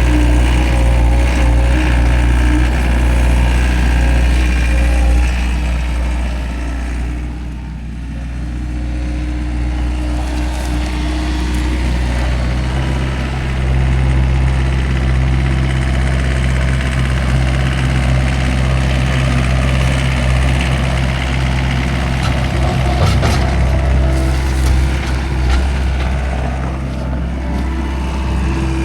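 Farm machine's engine running steadily, dropping off briefly about seven seconds in, then picking up again with a stronger, deeper note from about thirteen seconds in.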